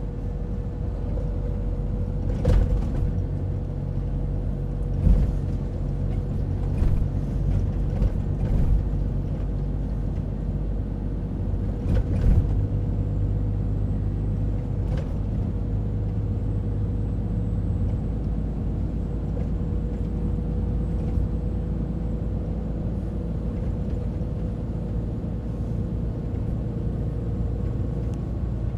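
Scania timber truck driving at a steady speed, its engine humming evenly, with several sharp knocks and rattles in the first half.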